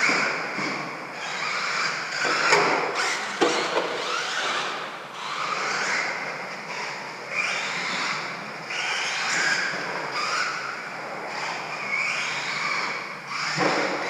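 Radio-controlled stadium truck driving laps, its motor and drivetrain whining up and down in pitch as it speeds up and slows through the corners, with a few sharp knocks a few seconds in.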